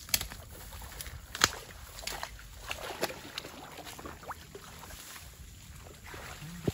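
Water sloshing and splashing as a person wades waist-deep through muddy water among thick plants, with a few sharp clicks, the loudest just after the start and about a second and a half in.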